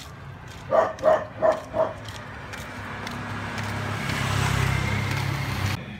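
A dog barks four times in quick succession about a second in. Then a motorcycle passes close by, its engine hum and road noise building to a peak before cutting off suddenly near the end.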